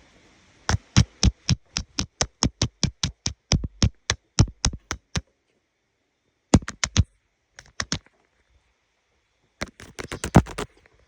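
A rapid series of sharp clicks or taps, about five a second for four seconds, followed by three short clusters of quicker clicks.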